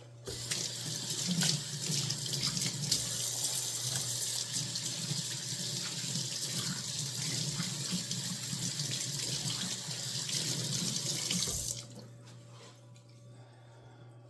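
Kitchen tap running into the sink, then turned off abruptly near the end.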